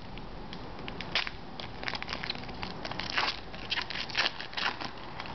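Hockey card pack wrapper crinkling and tearing as it is peeled open by hand, a run of short, irregular crackles.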